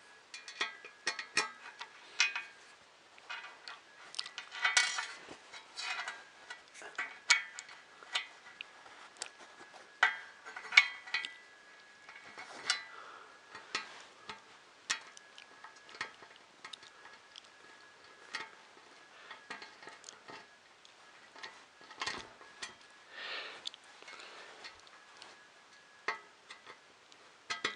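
Small metal screws and nuts clicking and tapping against the printer parts as they are handled and fitted by hand: irregular light clicks with a few louder taps.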